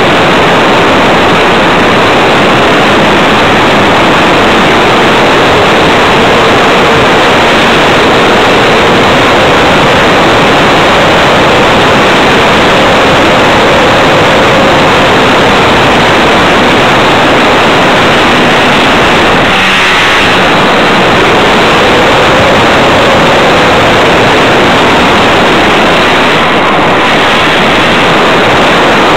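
Motor of a radio-controlled Tiger Moth model, recorded from a small camera mounted on the plane. It is a loud, overloaded wash of motor and rushing-air noise, with a faint motor pitch that slowly rises and falls.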